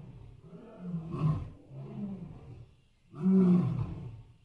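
Elephant giving a string of short, low, rough calls, each under a second long: one about a second in, another around two seconds, and a louder one about three seconds in.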